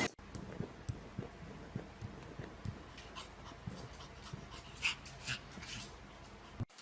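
A dog panting quietly, with scattered light clicks and taps.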